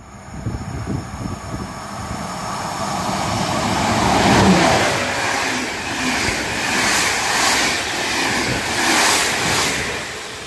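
Passenger train in PKP Intercity coaches passing at speed close by: the rumble of wheels on rail builds over the first few seconds, goes on with a repeated clatter as the wheelsets pass, and fades near the end as the last coach goes by.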